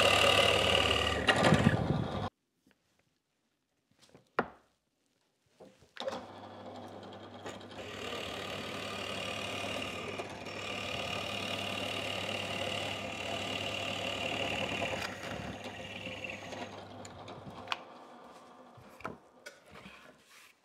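Bench drill press running, its Forstner bit boring into a maple board: a steady motor hum with a whine over it. It stops about two seconds in, starts again about six seconds in and runs steadily until shortly before the end, followed by a few light knocks.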